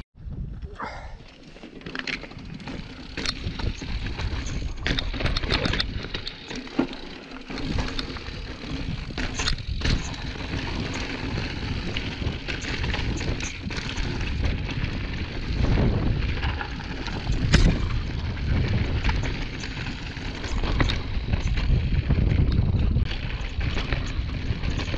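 Mountain bike rolling down a rocky trail: tyres running over loose stones and gravel, with frequent sharp knocks and rattles over bumps and wind buffeting the microphone.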